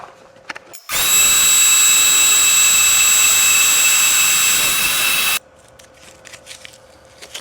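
Jet 20-inch smart drill press running and boring with a 1.5-inch Forstner bit: a loud, steady sound with a high whine that starts about a second in and cuts off suddenly about four and a half seconds later, followed by a few light clicks.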